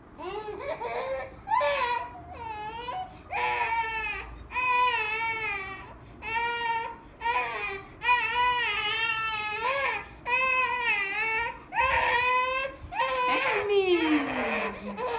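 A five-month-old baby crying out in a run of wavering, high-pitched wails, each about a second long with short gaps between. Near the end one cry slides down in pitch.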